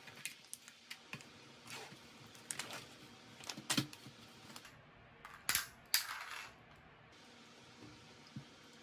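Light clicks and taps of kitchen handling, with a few louder clattering knocks around the middle.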